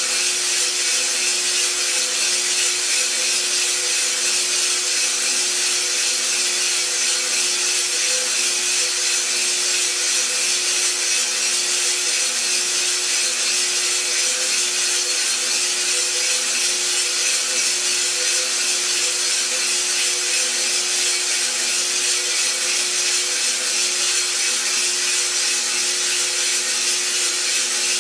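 iRoaster 600 drum coffee roaster running, with green coffee beans tumbling and rustling in the rotating drum early in the roast, over a steady hiss and hum from its motor and fan.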